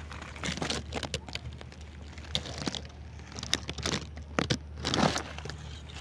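Irregular crackling and rustling, with a few louder swishes, over a steady low hum.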